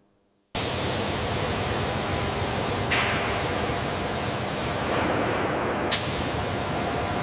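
A steady, loud hiss like spraying or escaping air that starts abruptly about half a second in, with one sharp click near six seconds.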